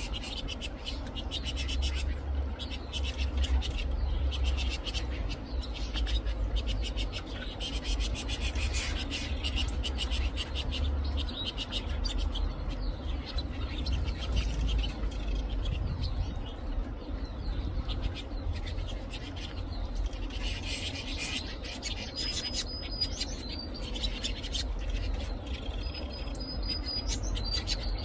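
Young Lizard canaries chirping and twittering rapidly, with a few short held whistle notes near the end, over a steady low rumble.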